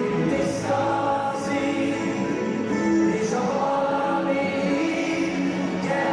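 Music with a choir singing in long held notes.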